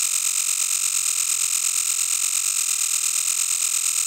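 Synthesized sci-fi sound effect: a steady, hissy, static-like electronic buzz, high-pitched, with a rapid, even flutter.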